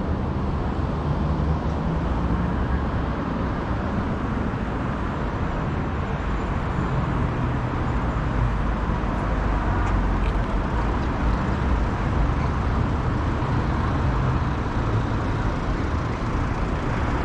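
Road traffic: cars driving past on a wide street beside the pavement, a steady mix of engine and tyre noise.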